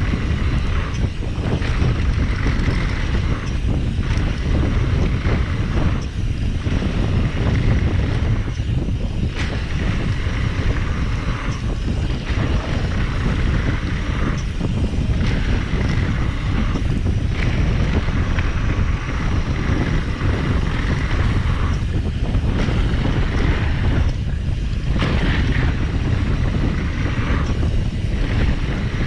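Wind rushing over the microphone of a mountain bike descending a dirt trail at speed, with the tyres rolling on the dirt. A loud, steady low rumble runs throughout, and a higher hiss comes and goes in stretches of a few seconds.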